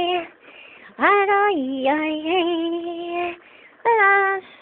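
A woman's voice singing a made-up washing-up ditty in three phrases with short breaks between them. The middle phrase holds long, wavering notes.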